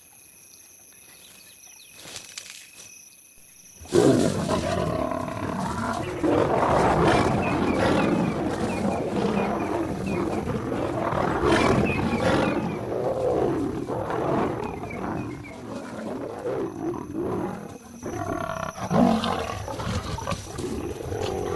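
Crickets chirring steadily, then about four seconds in a sudden eruption of lion snarls and growls as a male lion charges lionesses and they fight back. The snarling rises and falls through the rest of the fight.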